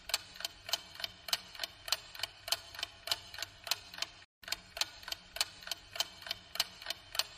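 Ticking-clock sound effect: steady, evenly spaced ticks about three a second, cutting out for a moment about four seconds in.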